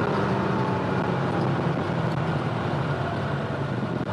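The air-cooled 3.0-litre flat-six of a 1979 Porsche 911 SC, freshly rebuilt and running through SSI headers and a twin-pipe exhaust, pulling steadily under way during break-in, its note easing slowly downward.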